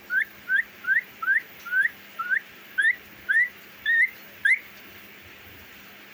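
Pet parrot whistling: about ten short, rising whistled notes, about two a second, stopping about four and a half seconds in.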